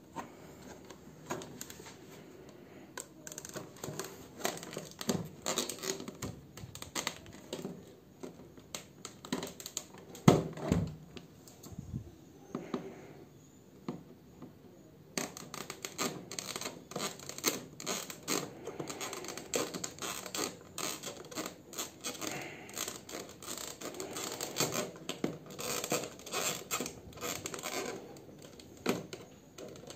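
A rigid clear plastic clamshell blister pack being handled and then cut open with scissors: irregular crackling and clicking of the stiff plastic and snips of the blades, getting busier about halfway through, with a single louder thump about ten seconds in.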